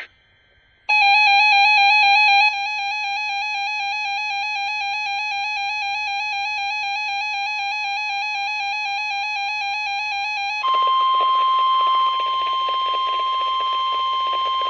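Weather radio alert: a rapidly warbling electronic alarm tone, louder for its first second and a half. About ten seconds in, it changes to the steady 1050 Hz NOAA Weather Radio warning tone over faint static. Together they signal an incoming warning broadcast.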